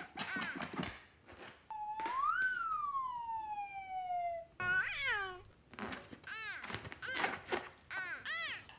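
High-pitched, squeaky cartoon-voice sound effects in short chattering bursts. About two seconds in comes one long whining call that rises and then slowly falls for nearly three seconds.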